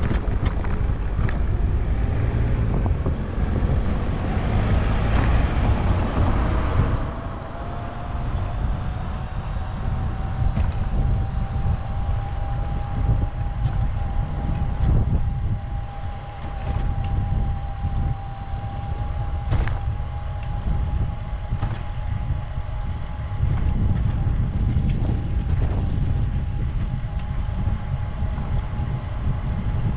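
Wind buffeting and road rumble on a GoPro's microphone mounted low on a moving bicycle, with scattered short knocks from bumps in the road. A steady thin whine comes in about five seconds in and holds.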